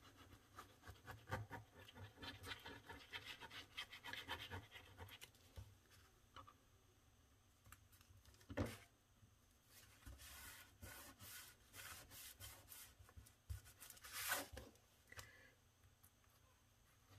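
Faint rubbing and scratching of a glitter glue bottle's nozzle dragged along the edges of a paper envelope, quick strokes at first and sparser later, with two soft knocks in the second half as the paper is handled.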